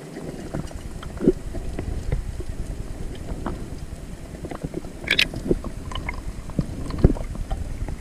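Underwater sound picked up by a diving camera: a low, muffled rumble of moving water with scattered clicks and pops, and a sharper crackle about five seconds in.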